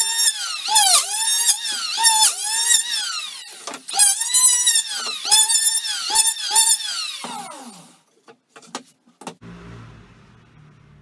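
Electric hand planer running with a high whine that sags in pitch again and again as the blades bite into the pallet board on each pass. It stops about seven or eight seconds in, and a few sharp clicks and then a faint low hum follow.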